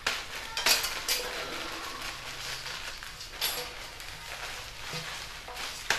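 A few sharp knocks and clatters as a metal basin is handled and passed over a burner flame for sterilising, over a steady hiss.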